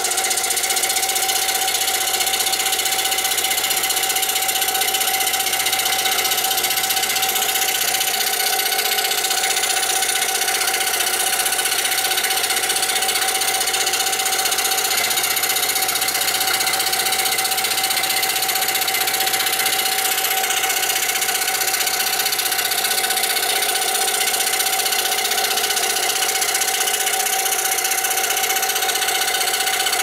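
Excalibur scroll saw running steadily, its number 3 blade cutting through MDF.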